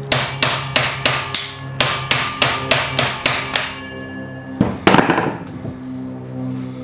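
Hammer blows on an old screwdriver used as a drift to drive the stuck front axle out of a Harley-Davidson Sportster 48's wheel: about a dozen sharp metallic strikes, roughly three a second, then a louder clatter of hits near five seconds in.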